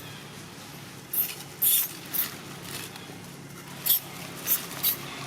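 A monkey giving a series of short, high squeaks, about six in a few seconds, over a faint steady hum.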